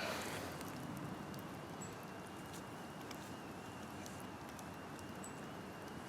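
Quiet outdoor background: a faint steady hiss with a thin, slightly wavering high tone held throughout and a few soft scattered ticks.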